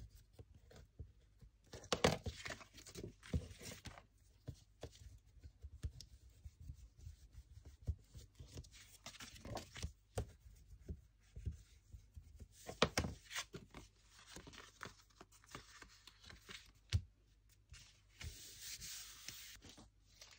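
A plastic craft tool rubbing and pressing on card stock to set freshly glued paper pieces, with paper rustling and scattered small taps and knocks. Longer stretches of rubbing come about two seconds in and again near the end.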